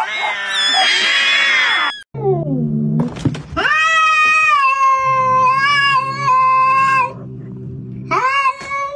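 A cat yowling in long, drawn-out caterwauls: a falling cry, then one long held yowl of about three and a half seconds, and a shorter one near the end, with a low steady hum underneath.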